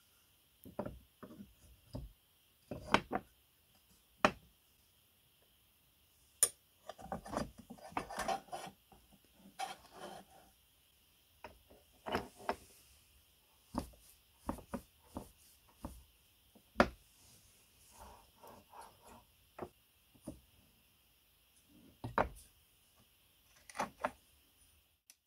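Cast-iron parts of an 1898 meat grinder being handled and fitted back together on a wooden table: scattered clicks and knocks, with a few busier stretches of handling noise.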